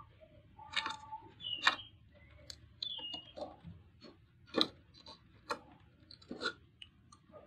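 Scattered small clicks and crackles of a flat flexible ribbon cable being handled and pushed into its connector on a TV mainboard, with a couple of brief faint squeaks of plastic.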